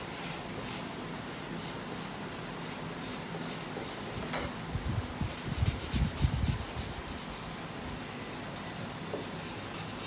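Colouring on paper: repeated short scratchy strokes of a colouring tool, with a few dull bumps against the table around the middle.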